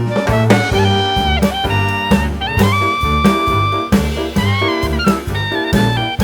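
Background instrumental music: a jazzy tune with a lead horn-like melody over a steady bass and drum beat.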